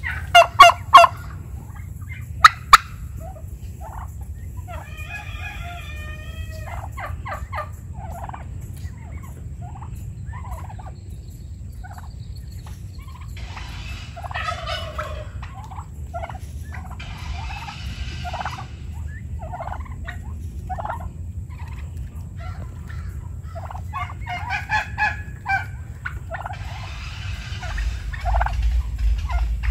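Domestic turkeys gobbling, with a tom strutting among the flock: rapid rattling gobbles in about five separate bursts a few seconds apart. A few sharp, loud knocks come in the first three seconds.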